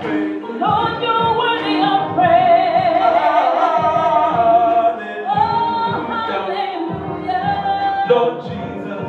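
Live gospel singing by two singers on microphones, with long, wavering held notes.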